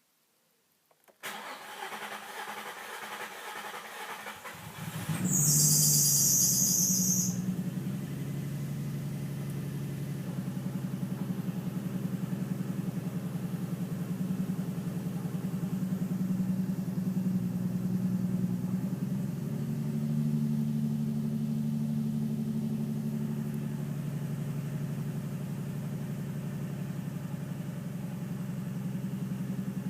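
Nissan 350Z's 3.5-litre V6 being started: the starter cranks for a few seconds, the engine catches with a brief hiss, then settles into a steady idle. The idle is uneven, which the owner takes for a misfire with a slight knock.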